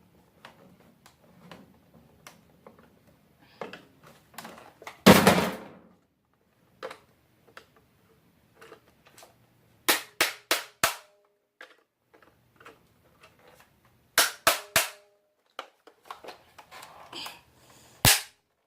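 Hand tools knocking and clicking against the housing of a small appliance being taken apart for scrap. A heavier clatter comes about five seconds in, then two quick runs of about four sharp taps, and one hard tap near the end.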